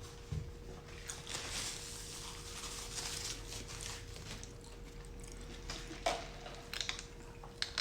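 Close-up chewing and biting of a crispy fried chicken sandwich, with a few short clicks near the end.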